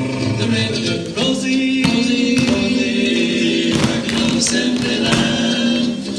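A song with several singing voices over instrumental backing, played for the dance routine.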